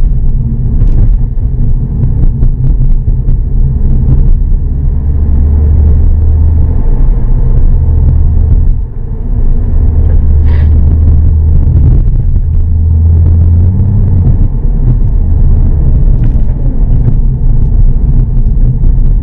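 Low rumble of a Volkswagen car on the move, heard inside the cabin: road and engine noise that swells louder over a few stretches and eases briefly about halfway through.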